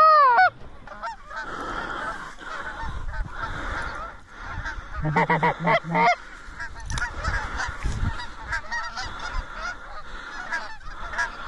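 A flock of geese honking and cackling in a dense, continuous chorus. There is a loud honk at the very start and a louder run of about five calls around five seconds in.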